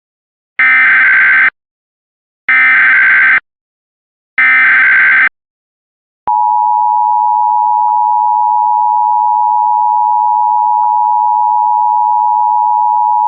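Emergency Alert System SAME header: three short bursts of screeching digital data tones, each just under a second long, about a second apart. About six seconds in comes the steady, unbroken EAS attention tone, a single pitch just under 1 kHz, still sounding at the end.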